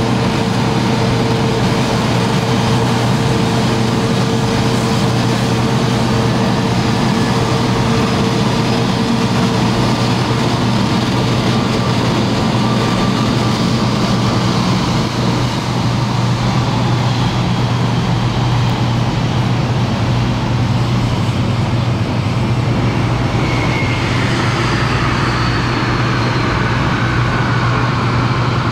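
Airbus A320neo jet engines running at a steady low hum as the airliner taxis onto its stand. About three-quarters of the way through, high whines start to fall in pitch as the engines wind down.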